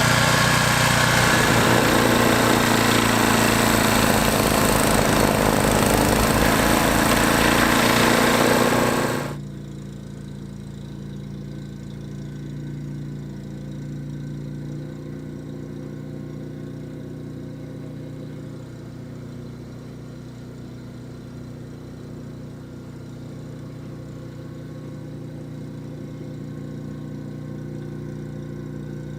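Gas snowblower engine running with a loud rushing hiss. About nine seconds in the sound drops suddenly to a quieter, steady engine hum.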